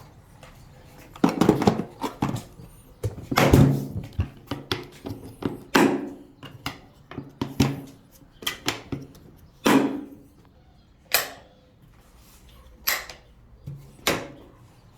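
Plastic tool boxes and their contents being handled: a dozen or so irregular knocks and clunks of lids, latches and tools being moved and set down.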